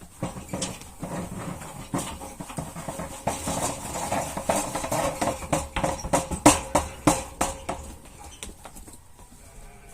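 Farm animals close by, with a dense run of irregular knocks and clatters that builds toward the middle and eases off near the end.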